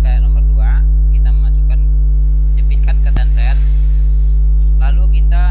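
Loud, steady electrical mains hum, a constant low drone with a ladder of overtones.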